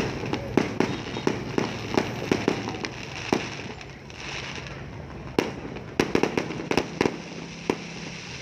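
Fireworks going off in quick, irregular sharp bangs and pops. A rapid string comes through the first three seconds, then a short lull, then another cluster of cracks from about five to eight seconds in.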